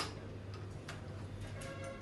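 Screwdriver and door-lock hardware clicking as the knob's mounting screws are driven in: one sharp click at the start, then a few light, irregular ticks. Background music with sustained notes comes back in near the end.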